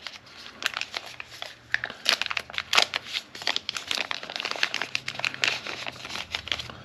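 Packaging crinkling and rustling as it is handled, in irregular sharp crackles.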